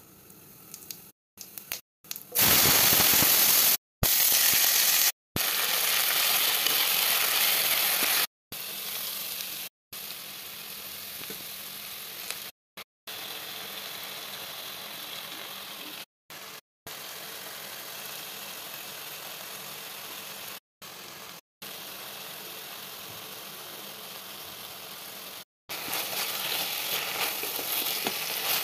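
Vegetables frying in hot oil in a wok: a steady sizzle, loud for the first few seconds, quieter through the middle, and louder and crackly again near the end as they are stirred. The sound cuts out briefly about a dozen times.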